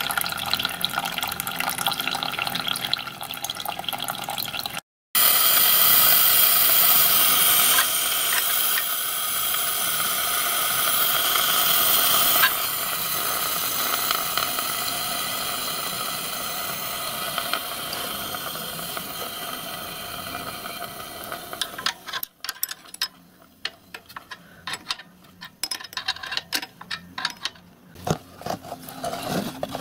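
Boiler blowdown valve on a 5-inch gauge live-steam locomotive blowing boiler water out at about 30 psi into a container: a loud, rushing hiss that fades away over about ten seconds. Near the end only a few light clicks and knocks remain.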